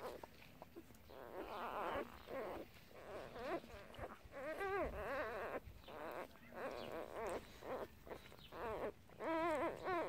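Newborn puppies squeaking and whimpering while nursing against their mother, with two longer, wavering cries about halfway through and near the end.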